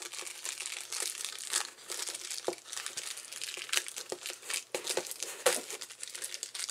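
Small clear plastic bag crinkling with irregular sharp crackles as fingers pick and pull at it to get a pin out.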